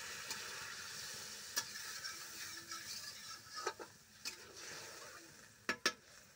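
Curry in a metal kadai sizzling just after water has been poured onto the fried masala, the hiss fading during the second half, while a metal spatula stirs and scrapes the pan. The spatula knocks against the kadai several times, with two sharp knocks close together near the end.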